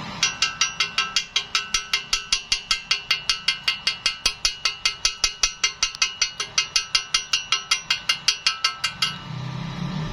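Metal being struck rapidly with a hammer, about five ringing metallic taps a second in an even rhythm, stopping suddenly about nine seconds in.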